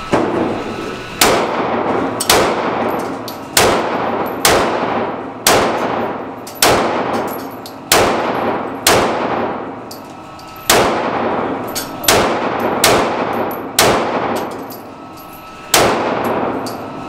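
A pistol fired thirteen times at a slow, steady pace of about one shot a second, with a couple of longer pauses. Each shot rings out in a long echo off the walls of the indoor range.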